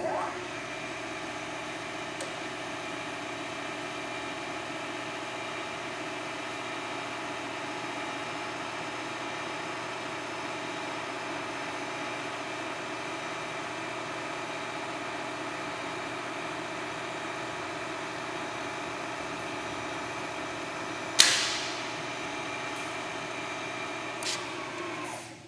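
Manford SP 160VSL vertical turret milling machine's spindle motor and head switching on and running at a steady speed, a mechanical whine of many even, unchanging tones. One sharp clank about 21 seconds in is the loudest sound, and near the end the spindle is switched off and spins down within about a second.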